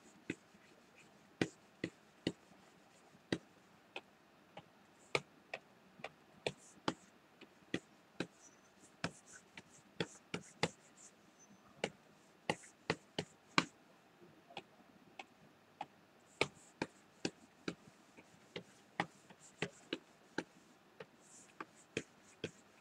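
Irregular sharp clicks and taps, one or two a second, with faint scratchy hiss between them: a stylus tapping and stroking on a drawing tablet during digital painting.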